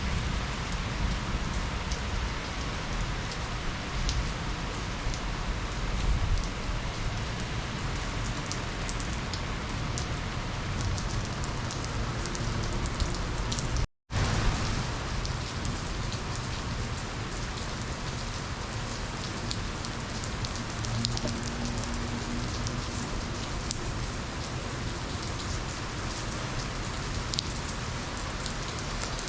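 Steady heavy rain from a thunderstorm falling on surfaces, with a low rumble underneath. The sound cuts out abruptly for a split second about halfway through, then resumes.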